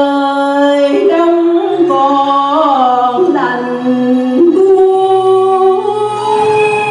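A woman singing a slow melody into a microphone, holding long notes that step from one pitch to the next, over quiet instrumental accompaniment.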